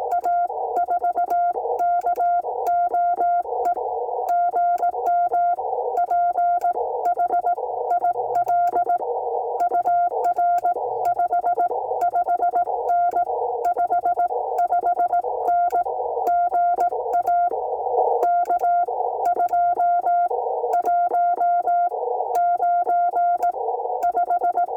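Morse code (CW) on a ham radio transceiver: a single steady mid-pitched tone keyed on and off in dots and dashes without pause, over a narrow band of filtered receiver hiss.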